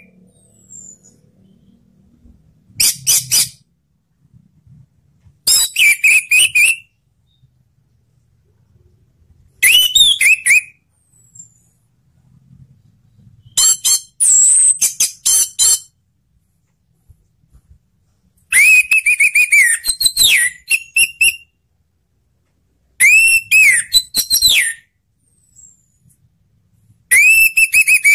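Orange-headed thrush singing loud whistled song phrases of one to three seconds each. There are seven phrases, coming roughly every four seconds with short silent gaps between them.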